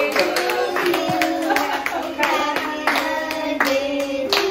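Hand-clapping in a steady rhythm along with a sung melody.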